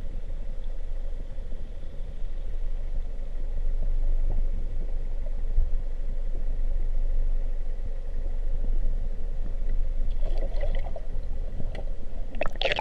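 Muffled underwater sound through a camera's waterproof housing: a steady low rumble with a faint constant hum. About ten seconds in, and again near the end, comes splashing and sloshing of water against the housing.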